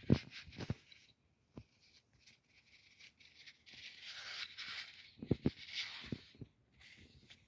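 Paper towel damp with brake cleaner being rubbed over the back of a throttle body to wipe off carbon, a hissy scrubbing in the middle, with a few knocks of the part being handled near the start and again partway through.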